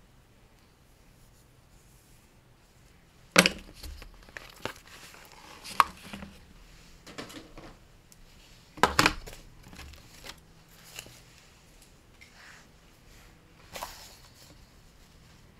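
Paper being handled: intermittent rustling and crinkling, with sharper sounds about three and nine seconds in.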